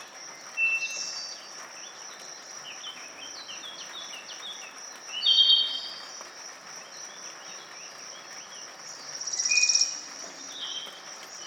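Forest birds singing and calling over a steady high-pitched insect drone. Scattered short notes run throughout, the loudest a burst of calls about five seconds in and a buzzy trill about nine and a half seconds in.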